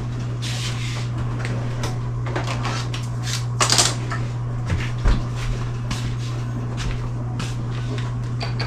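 Kitchen cabinets being opened and shut while a bread knife is fetched: scattered knocks and clicks, with a louder clatter about three and a half seconds in and a sharp knock a second later, over a steady low hum.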